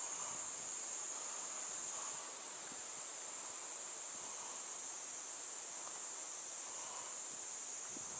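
A steady, high-pitched insect chorus over a faint, even hiss.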